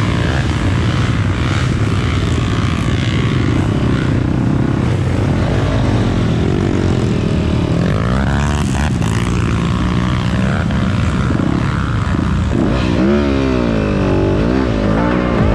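Off-road trail motorcycle engines running, revved up and down twice, around the middle and again near the end.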